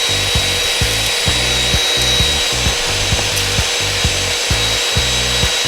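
Drill at full speed with a rotary wire brush scrubbing rust off the metal of a log burner, a steady whirring grind that pulses about twice a second as the brush is pressed and moved across the surface.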